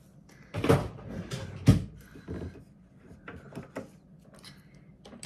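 Makeup items being handled on a vanity: a rustle, then a sharp click about two seconds in, followed by smaller clicks and rattles as the finished eyeshadow palette is put away and the mascara is picked up.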